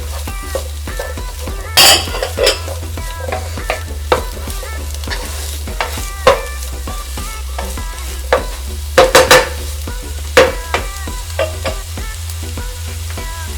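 Vegetables sizzling in a frying pan while being stirred, with a utensil repeatedly clinking and knocking against the pan. The louder knocks come about 2 s and 6 s in and in a quick cluster near 9 s.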